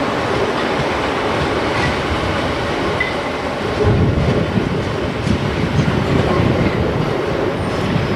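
Class 450 Siemens Desiro electric multiple unit running over pointwork: steady wheel-on-rail noise with clickety-clack over the joints and a couple of brief, faint wheel squeals in the first half.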